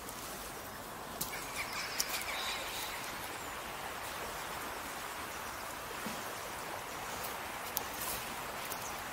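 River water flowing steadily, with a few sharp clicks and a brief bird call in the first few seconds.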